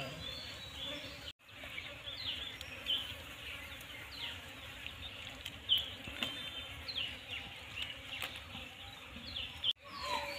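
Insects buzzing with many short, falling bird chirps scattered through. The sound cuts out for an instant twice, about a second and a half in and near the end.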